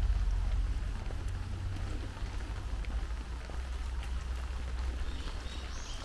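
Steady rain falling on foliage and a wet path, a soft hiss with faint drop ticks over a steady low rumble. A few short high chirps come in near the end.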